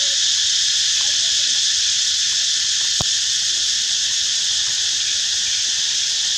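Loud, steady insect chorus droning without a break in the forest, with one sharp click about three seconds in.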